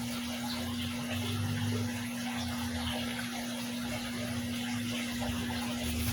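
Aquarium water running and splashing steadily, with a constant hum from the tank's water pump beneath it.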